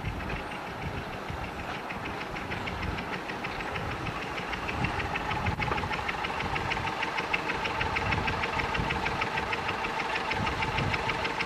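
Engine of a 10¼-inch gauge miniature railway locomotive running with a rapid, regular knocking beat as it draws slowly up to the platform, growing louder as it comes closer.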